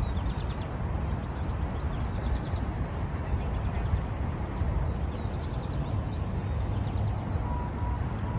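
Outdoor park ambience: a steady low rumble with small birds chirping in short high calls through the first half. A faint steady tone comes in near the end.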